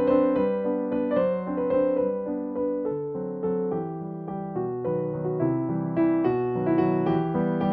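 Background keyboard music, a steady run of melodic notes.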